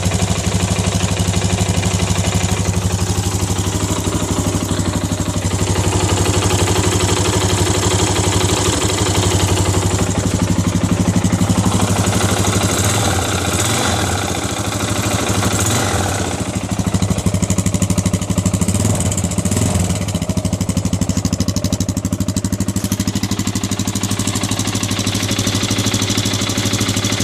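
Yamaha XT 350's air-cooled single-cylinder four-stroke engine idling steadily, with the strange noises its owner is puzzled by. The note wavers briefly in the middle, then settles back to a steady idle.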